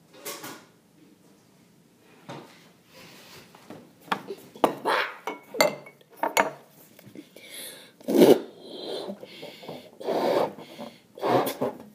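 A rubber balloon rubbing against a metal cooking pot as both are handled, with scrapes and light knocks of the pot, then strong breaths blown into the balloon three times in the last few seconds as it is inflated inside the pot's mouth.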